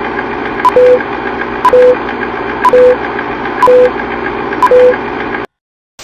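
Old-film countdown leader sound effect: a film projector's steady clatter with a click and a short beep once a second, about five beeps, cutting off suddenly about five and a half seconds in.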